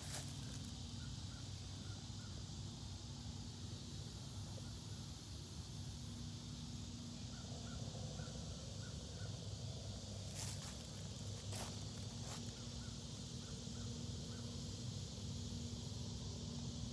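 Outdoor ambience: a steady high hiss of insects, with faint short chirps in small runs a few times and a low rumble underneath.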